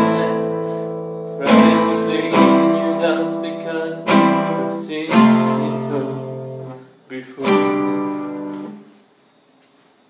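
Solo acoustic guitar playing the song's closing chords: about five strummed chords, each left to ring and decay, the last one fading out about nine seconds in.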